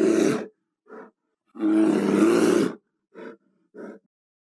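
Brown bear roaring: two loud, drawn-out roars of about a second each, with three short, much quieter calls between and after them.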